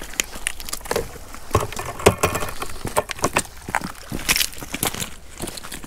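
Irregular clatter of sharp clicks and knocks: scallop shells knocking in a plastic bucket and footsteps on shingle.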